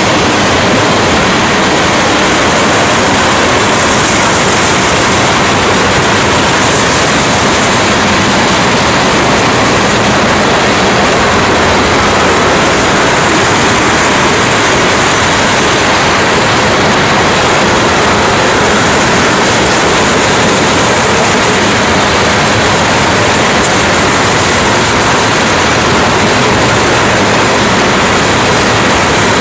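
Freight train of tank cars rolling past: a loud, steady rush of steel wheels on the rails, with no clear beat of rail joints.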